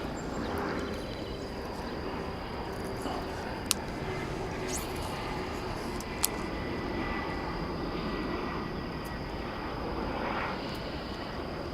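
Steady low outdoor rumble like distant engine noise, with a faint steady high whine and two sharp clicks, one about four seconds in and one about six seconds in.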